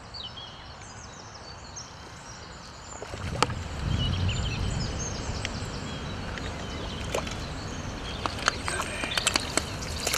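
Outdoor ambience: small birds chirping over a steady hiss. The hiss swells with a low rumble about three seconds in, and a few sharp clicks are scattered through.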